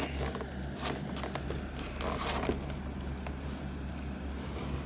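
Clear plastic blister packaging of an action figure being handled, giving scattered light clicks and short crinkling rustles over a steady low hum.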